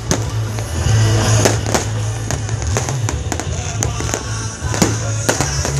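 Fireworks going off: an irregular run of sharp cracks and pops, over music with a heavy, steady bass.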